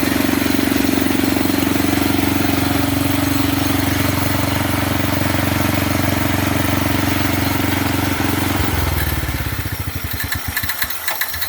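The 4 hp Briggs & Stratton engine of a 1962 Lawnmaster snow thrower running steadily after a tune-up with a new spark plug and an adjusted fuel mixture. Near the end it drops to a slower, quieter run.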